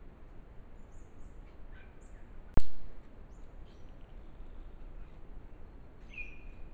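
Faint bird chirps over steady background noise, broken about two and a half seconds in by a single sharp, loud crack.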